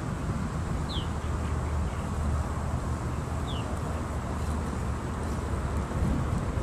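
Steady low outdoor rumble with a faint short high chirp twice, about one and three and a half seconds in.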